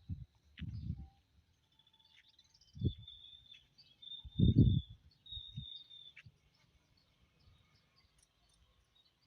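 A high, steady animal call held at one pitch, sounding in several stretches of half a second to a second, over a few low thumps, the loudest about halfway through.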